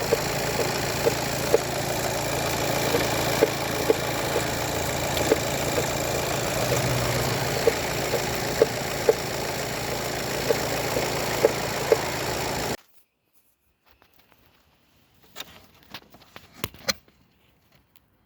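VW Golf 7 1.6 TDI four-cylinder diesel engine idling with a sharp knock repeating irregularly about once or twice a second, a knock the owner puts down to the timing belt. The engine sound cuts off abruptly about 13 seconds in, leaving near silence with a few faint clicks.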